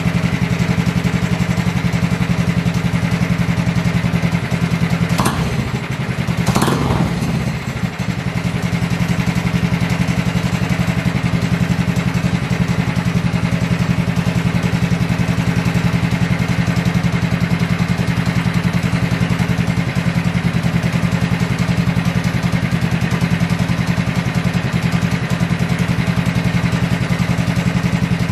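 Predator 212cc Ghost single-cylinder four-stroke kart engine idling steadily, with one quick rev that rises and falls about six seconds in.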